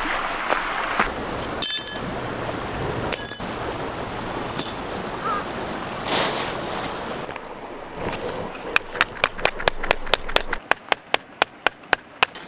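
A bundle of metal tent pegs clinking: three short ringing chinks over a steady rustling hiss. Near the end comes a fast, even run of sharp ticks, about five a second.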